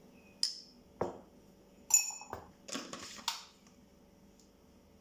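A metal teaspoon clicking and clinking against a mug while sugar is spooned in: a few light taps, one ringing clink about two seconds in, then a soft rustle of sugar.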